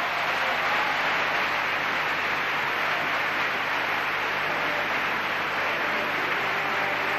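Opera house audience applauding steadily, a dense even clapping.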